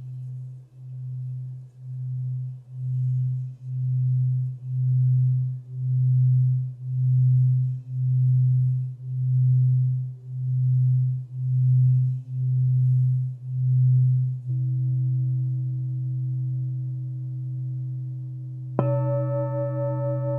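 Alchemy crystal singing bowl for the root chakra, played around the rim: one low tone that pulses about once a second while swelling louder, then holds steady. Near the end a strike adds several higher ringing tones over it.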